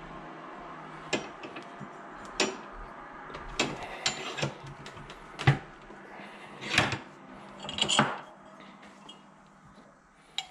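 Irregular metal knocks and clanks as a copper pipe is handled in a bench vise and the vise is opened, about eight in all, the loudest near the middle. A steady low hum runs under the first half.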